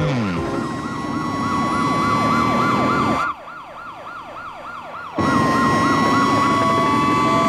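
Cartoon police sirens in a fast yelp, rising and falling about three times a second. They turn quieter for a couple of seconds in the middle, then come back louder as a steadier wail with vehicle noise under it.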